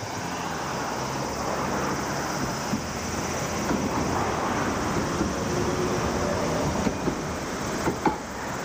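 Toyama Light Rail Portram low-floor tram passing close by, its wheels and motors making a steady rushing run along the track, with a few sharp knocks near the end.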